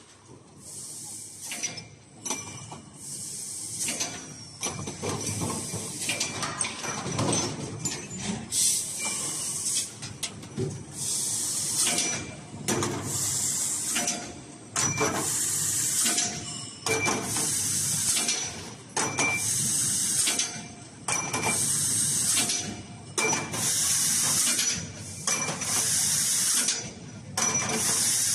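Fiber laser tube cutting machine at work on small pipe: its assist gas hisses in repeated bursts about a second long, settling to roughly one burst a second, with a faint steady high whine and light mechanical knocks from the loading and feeding gear between cuts.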